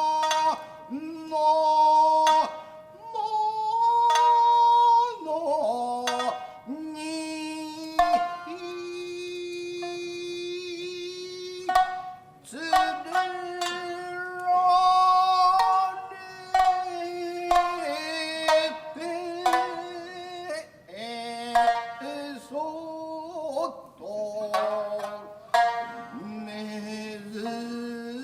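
Tokiwazu narrative chanting: a voice singing long, drawn-out notes that slide between pitches, over sharply plucked shamisen notes.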